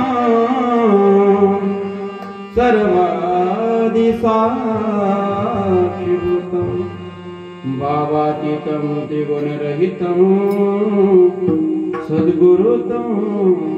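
A man singing Marathi devotional kirtan through a microphone and PA, long held and ornamented notes in phrases, a new phrase starting about every five seconds.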